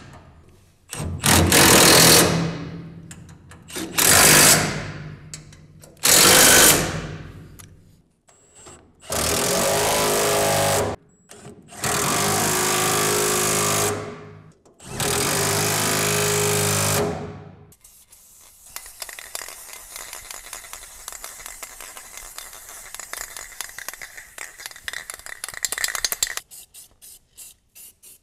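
Cordless power tool driving bolts into a car's front subframe in six bursts, the last three longer and steadier. After the bursts come several seconds of fainter fast ticking, then quicker rattling pulses near the end.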